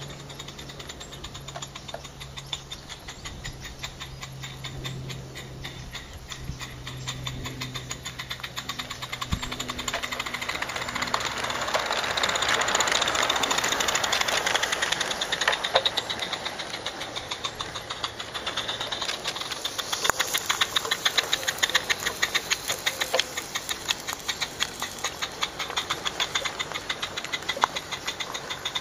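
Small live-steam garden-railway locomotive (a rebuilt Mamod SL1 with PPS cylinders) working under steam, its exhaust giving a rapid, even beat of chuffs that grows louder as it passes.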